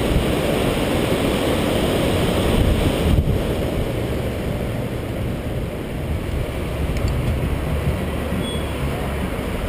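Steady low rumble of a bicycle ride heard on a bike-mounted camera: wind and road noise on the microphone, with street traffic alongside. A single short knock about three seconds in, like the bike going over a bump.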